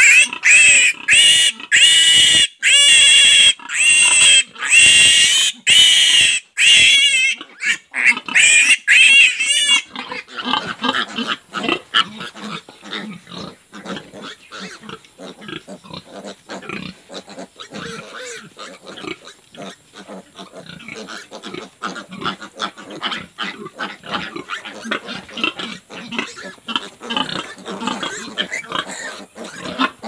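A piglet squealing loudly and shrilly over and over while it is held down for an iron injection, its distress cries coming about once or twice a second. The squealing stops at about eight seconds in, leaving only quieter, irregular short pig sounds and shuffling.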